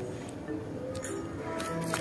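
Background music, a light melody of short notes, with a few faint crinkles from a paper squishy being squeezed.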